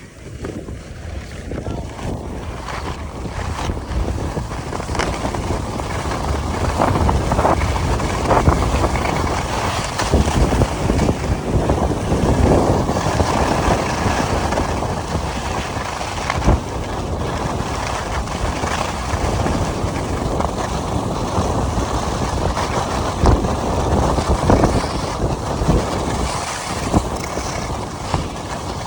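Wind rushing over the microphone mixed with the hiss and scrape of Blizzard Firebird SRC ski edges carving on snow, building over the first couple of seconds and then rising and falling, with occasional sharp scrapes.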